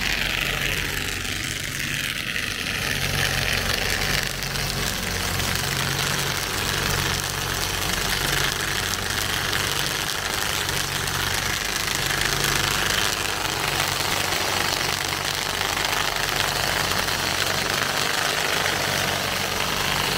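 Tractor engine running steadily while it drives a hydraulic inter-row weeder whose rotor cultivates the soil between the vines, with a low drone that swells and fades about once a second.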